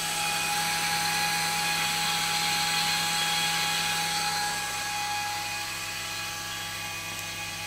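Noisy cooling fan on a 400 W 432 MHz power amplifier's heatsink running steadily while the amplifier transmits at full power. It makes a whine of several steady tones over a low hum, a little quieter after about five seconds.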